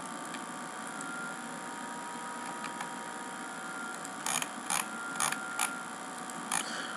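Computer mouse clicking five times in quick succession in the second half, as points of a line are placed. Under it, a steady hiss with faint thin whines.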